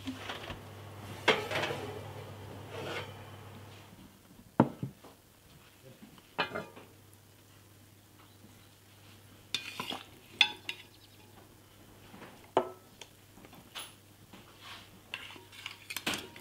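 White enamel casserole pot handled out of the oven and set down with a sharp knock, then metal tongs clinking and scraping against the pot as braised lamb shanks are turned in their liquid. A few separate knocks and clinks, the loudest about four seconds in.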